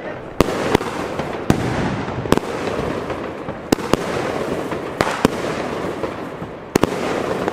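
Bonfireworks 'Bloody Chameleon' firework battery firing shots into the air: about eight sharp bangs at uneven intervals, roughly one a second, over a steady rushing hiss from the launched effects.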